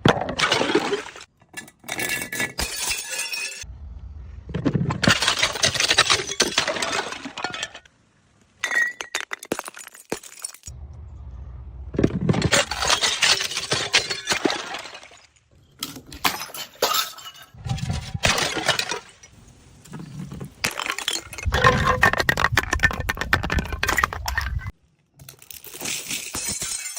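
Glass bottles smashing one after another, each a heavy crash followed by a spray of tinkling, clinking shards, about eight separate smashes that start and stop abruptly.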